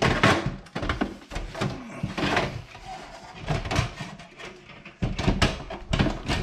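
Irregular knocks, clunks and scrapes of a bathroom exhaust fan housing being tilted up through a ceiling opening, scraping the drywall edges and settling into place.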